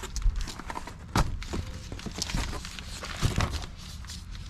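Scattered knocks, thuds and rustling from a boxed patio table and its packaging being handled, with the two louder knocks about a second in and past three seconds in.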